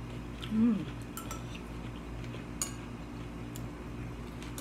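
Spoons and chopsticks clinking lightly now and then against ceramic soup bowls while people eat, with a short voiced sound from one of the eaters about half a second in, the loudest moment.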